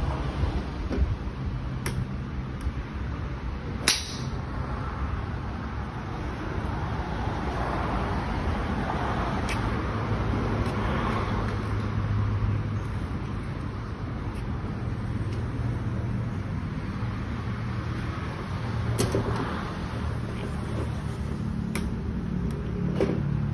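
Sharp clicks of golf clubs striking balls on a driving range, the loudest about four seconds in and a few fainter ones later, over a steady low hum.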